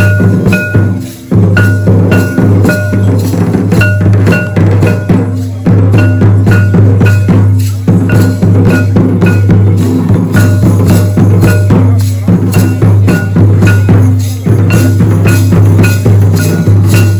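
Folk drumming for a Santali line dance: barrel drums beat a steady, driving rhythm over a continuous low drone, with short high ringing pings keeping time.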